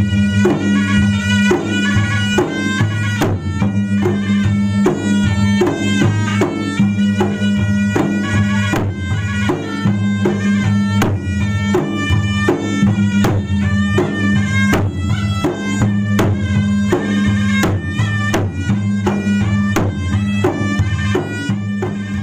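Bugis-Makassar gendang, large double-headed barrel drums, beaten by two drummers in a rapid, steady interlocking rhythm, with a sustained wind-instrument melody over the drumming.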